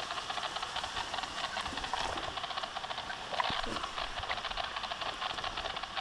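Steady static hiss from a radio-telemetry receiver's speaker, tuned to a turtle's transmitter while listening for its pulse.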